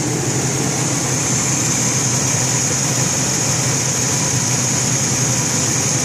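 2001 Chevrolet C1500's 4.3-litre V6 idling steadily with the hood open, running smoothly with no misfire now that the bent exhaust valve has been dealt with.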